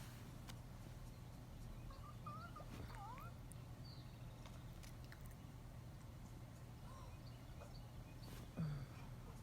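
Bengal cat making faint sounds at close range: a few soft short chirps about two to three seconds in and a brief low sound near the end, over a steady low hum.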